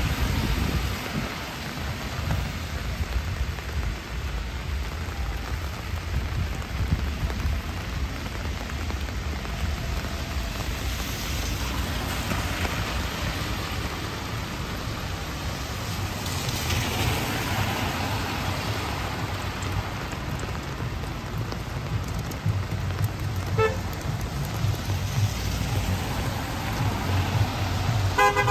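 Steady heavy rain falling, with the hiss of cars passing on the wet road swelling up twice around the middle.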